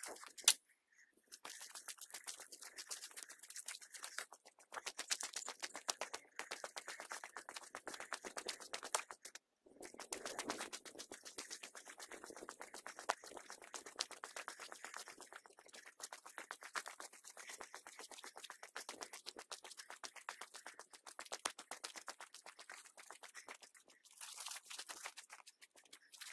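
Footsteps crunching and rustling through dry fallen leaves and twigs, with one sharp knock near the start.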